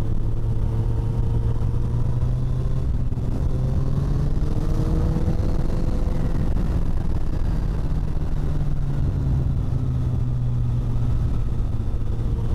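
Kawasaki ZZR1400's inline-four engine running at road speed with wind noise rushing over the microphone. The engine note climbs gently about four to six seconds in, then holds steady, as the bike accelerates to pass a car.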